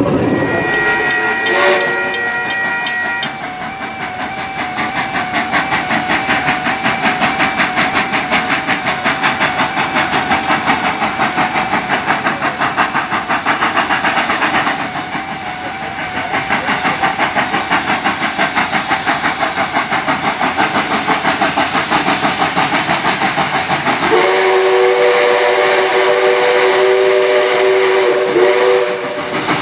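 Level crossing bells ringing in a fast, even rhythm. Near the end a steam locomotive's whistle sounds one long blast of several notes at once. It opens with a short high whistle tone.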